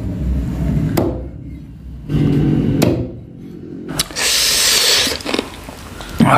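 Knife chopping raw chicken on a wooden chopping block, a few sharp chops. About four seconds in, a wet, crackly noise of hands tearing and squishing pieces of chicken curry.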